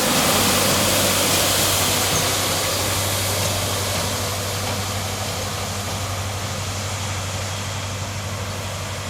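Motor vehicle engine running with a steady low hum under broad road noise, loudest in the first couple of seconds and then slowly fading.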